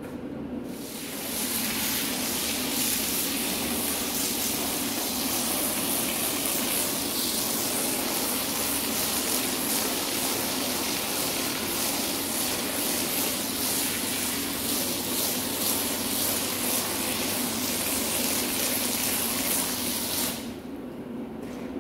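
High-pressure water spray from a hose wand jetting onto a foam-covered rug and wet tiles as the soap is rinsed out; a steady rush that starts about a second in and cuts off shortly before the end. A steady low hum runs underneath.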